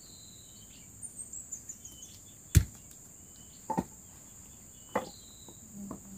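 A few sharp chopping knocks of a parang (machete) striking a tree stump: one loud strike about two and a half seconds in, then three lighter ones. A steady high drone of crickets runs underneath.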